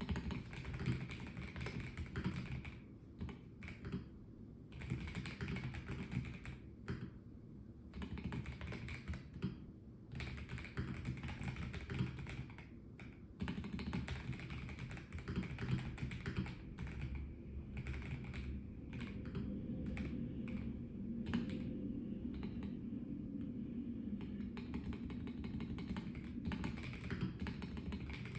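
Typing on a Melgeek Mojo84 plastic-case mechanical keyboard: fast runs of keystrokes broken by brief pauses in the first half, then steady unbroken typing from about halfway.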